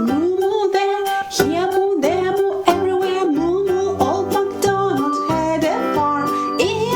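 Children's song music: plucked ukulele or guitar strumming under a gliding melody line, which may be sung.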